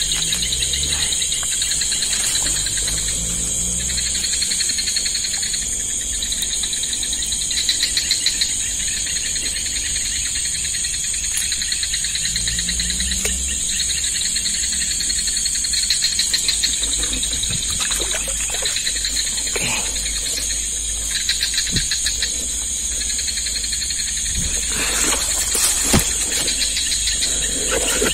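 Night insects chirring in a dense chorus: one steady high-pitched trill, with a lower chirr that comes and goes in phrases every second or two. A few soft knocks sound near the end.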